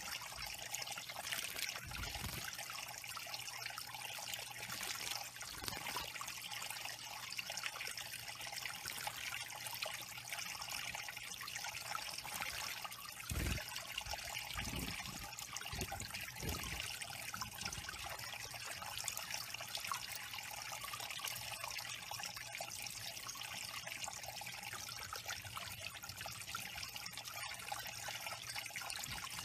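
Water trickling steadily over stacked stones into a shallow pool from a small backyard waterfall, with a few soft low thumps about two seconds in and again around the middle.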